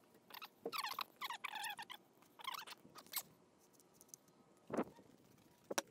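A plastic hand brush sweeping granular floor absorbent, clumped with spilled coolant, across concrete into a dustpan, in a run of short scratchy strokes. There is a pause of about a second and a half before the last strokes near the end.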